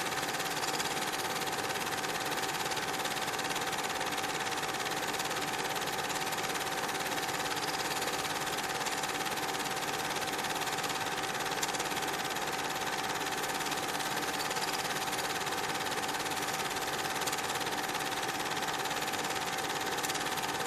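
Steady mechanical whirr with an even hiss and a constant whine, unchanging throughout.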